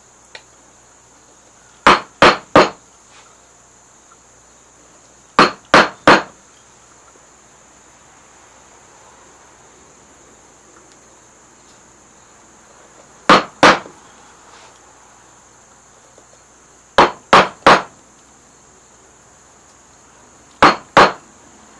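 Turned wooden mallet striking the handle of a carving gouge, driving it into yellow cedar to make vertical cuts. The strikes come as five quick groups of two or three sharp knocks, a few seconds apart.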